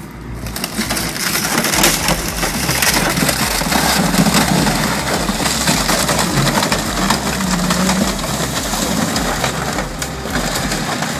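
Car body being crushed by a heavy car-crushing machine: continuous crunching and grinding of metal, starting about half a second in.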